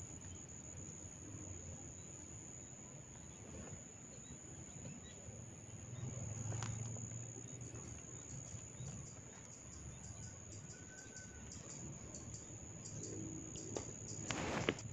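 Hair cracking: bunches of scalp hair tugged so that they snap, giving a sharp crack about six and a half seconds in, a run of small crackling snaps in the second half, and a louder rustling burst near the end. A steady high-pitched whine runs under it.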